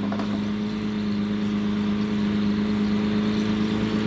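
Lamborghini Aventador LP700-4's V12 idling steadily through a straight-piped Capristo exhaust, a low, even note that holds without rising or falling.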